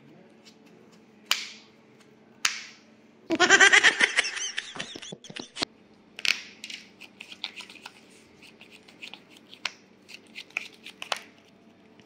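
Yu-Gi-Oh trading cards handled at a table: two sharp slaps about a second apart, then a loud burst of rapid rattling as a deck is shuffled, followed by scattered light taps and clicks as cards are laid on the playmat, over a low steady hum.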